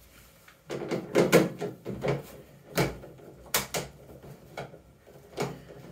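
Handling noise: irregular knocks, clicks and rubbing, about half a dozen sharp ones, as a hand-held camera is moved about and bumped.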